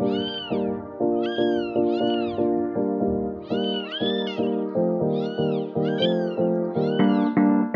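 Background music made of cat meows: short meows pitched to a tune, in groups of two or three on the beat, over a steady backing of changing chords.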